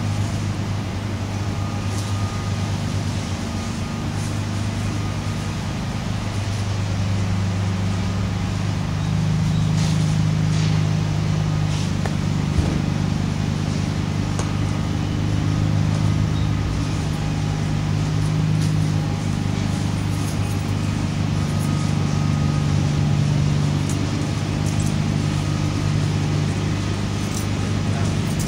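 A steady low motor drone that rises and falls slightly in pitch, with a few faint ticks.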